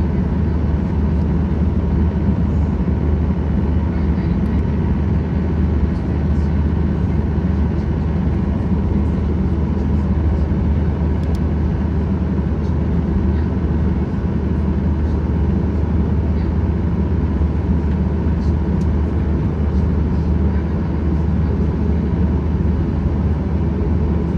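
Steady cabin noise inside a Boeing 737-800 airliner: the even drone of its CFM56 engines over a low rumble, unchanging throughout, with a few faint ticks.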